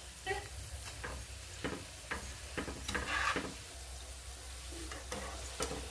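Cabbage pakodi fritters deep-frying in hot oil, a steady sizzle, with scattered short clicks and scrapes as a spoon stirs them in the pan.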